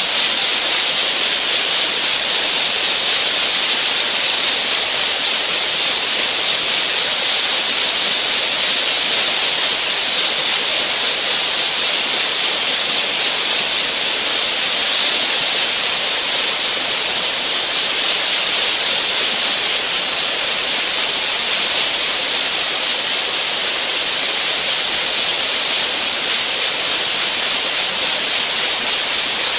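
Soda blaster running continuously, compressed air driving baking-soda media out of the nozzle against an MG hood with a loud, steady hiss.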